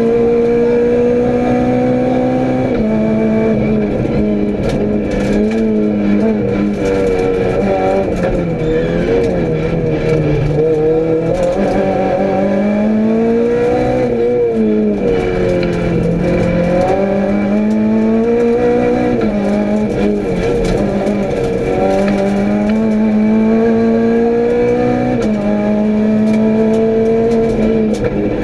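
Renault Clio rally car's engine, heard from inside the cabin, pulling hard on a tarmac stage: the revs climb steadily and drop sharply at upshifts about three seconds in and near the end. In the middle they fall and rise again through braking and a corner.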